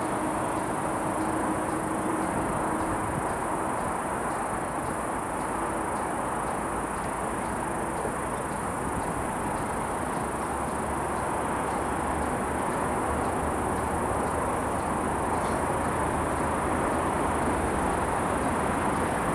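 Steady outdoor background noise: a constant, even rush with a high, steady buzz over it.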